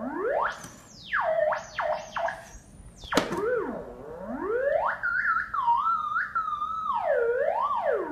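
Theremin whose pitch antenna is being pawed by a cat, giving an electronic tone that swoops up and down in pitch with quick jumps and wobbles. There is a sharp click about three seconds in.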